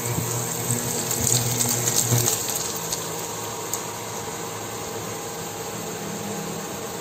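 Sauteed eggs with tomatoes and onion sizzling in oil in a pan: a steady hiss with scattered crackles, busiest in the first couple of seconds, over a steady low hum.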